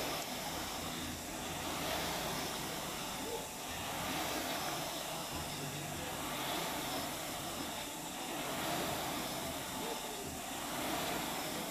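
Air-resistance rowing machine's fan flywheel whooshing with each stroke: a rushing air sound that swells and eases about every two seconds at a steady rowing pace.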